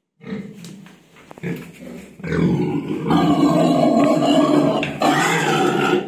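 Domestic pigs vocalizing close to the microphone: a few short grunts, then from about two seconds in a loud, long, drawn-out call that holds steady with a brief break near the end.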